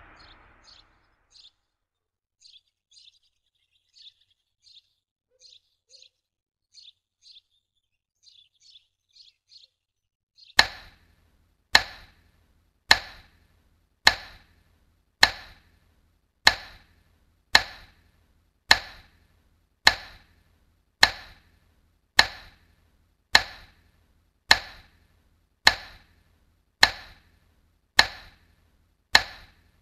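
Faint, short, high chirps in small irregular groups, then, about ten seconds in, loud sharp knocks start at an even pace of a little under one a second, each ringing out briefly like a clock's tick.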